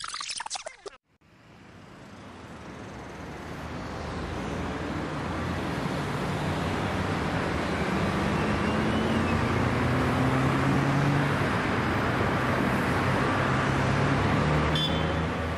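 Car engine and road noise, swelling gradually over several seconds and then holding steady, with a low hum that rises slowly in pitch.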